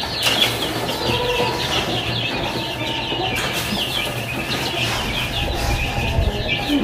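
A flock of small caged birds chirping constantly in quick, high chirps, with wings fluttering in the cage: the birds are restless and eager for the feed being brought to them.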